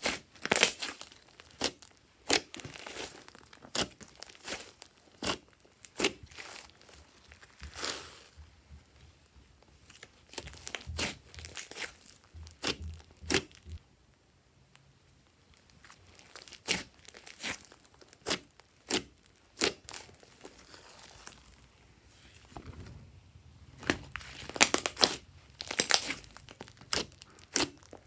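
Thick, puffy slime squeezed, pressed and stretched by hand, giving irregular sticky clicks, pops and crackles. The clicks thin out and go quieter about halfway through, then come thick and loud again near the end.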